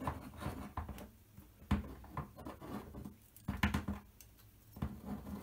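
Small hex key turning a machine screw out of a circuit-board stack: scattered light clicks and scrapes of metal on metal, with a few sharper ticks.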